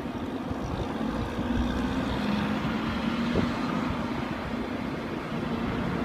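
Road traffic on a snow-covered road: a steady wash of engine and tyre noise, with one vehicle's low engine hum holding from about a second in until near the end. Wind rumbles on the microphone underneath.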